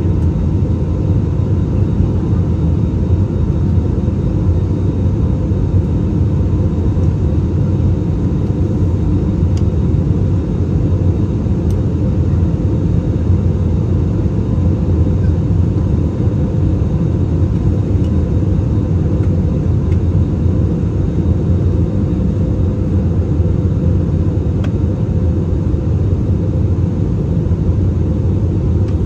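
Steady low rumble of a jet airliner's engines and rushing air, heard from inside the cabin as the plane climbs after takeoff.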